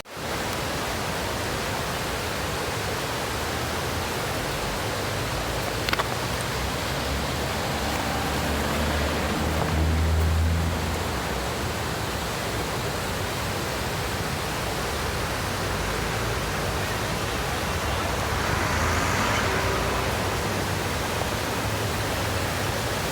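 Glacier-fed river rushing steadily, a constant hiss of fast-flowing water. A brief click comes about six seconds in, and a low rumble swells briefly near the middle.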